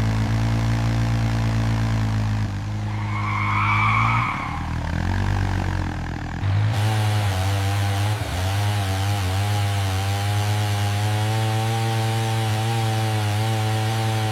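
A small engine running steadily, its pitch shifting and wavering a few times, with a brief higher-pitched sound about four seconds in.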